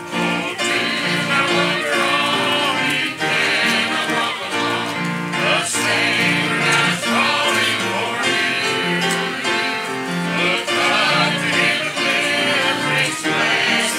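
A congregation singing a hymn to piano accompaniment.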